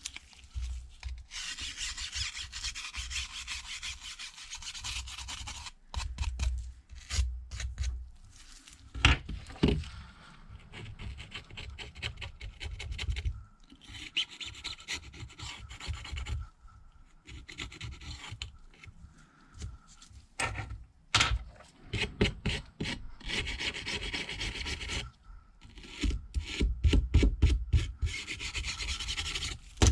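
Stiff Qianli repair brush scrubbing a phone frame, in stretches of rapid strokes with short pauses between them.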